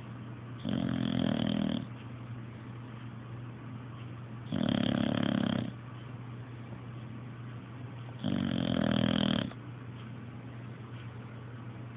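Very loud snoring: three long snores of about a second each, coming roughly every four seconds, over a steady low hum.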